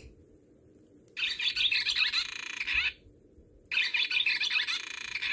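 Audubon plush parrot toy playing its built-in recorded bird call twice, each call lasting about a second and a half, with a short pause between.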